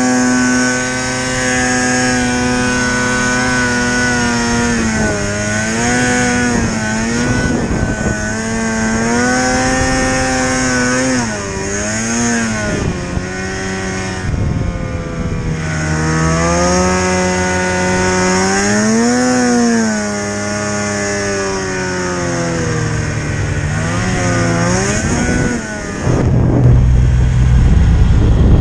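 Two-stroke engine of a Polaris RMK snowmobile running under throttle in deep powder, its pitch rising and falling again and again as the rider works the throttle through turns. It grows louder and heavier near the end.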